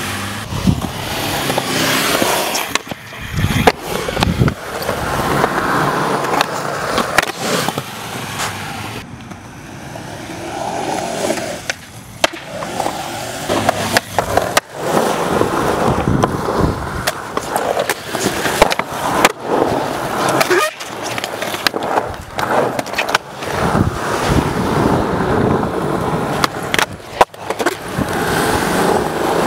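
Skateboard wheels rolling on concrete with a continuous rumbling roll. It is broken again and again by sharp clacks of the board: tail pops and landings as tricks are done on the ramps.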